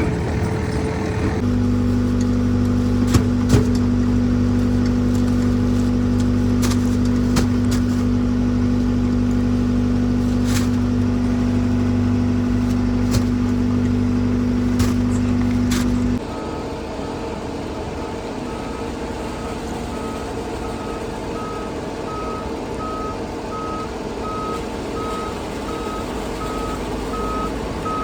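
Heavy diesel engine running steadily with a few sharp clicks. About halfway through the sound changes abruptly to a quieter engine, and a truck's reversing alarm starts beeping about once a second.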